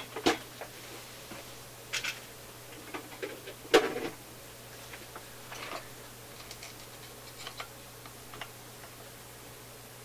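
Light clicks and taps of small parts being handled against a metal radio chassis, with one sharper knock about four seconds in. A low steady hum runs underneath.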